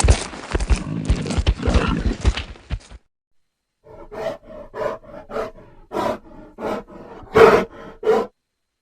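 Made-up monster vocal sound effect for a crocodile–human hybrid creature. About three seconds of a dense, rough call, a second of silence, then a run of short pitched calls about two a second, the loudest one near the end.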